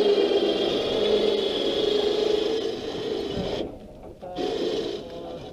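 12-volt electric winch motor on a truck crane running under load with a steady whine, lowering a log. It stops about three and a half seconds in, then makes one short run.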